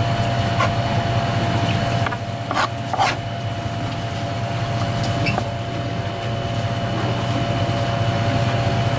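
Steady machine hum with a constant thin whine, and a few short knocks about two to three seconds in.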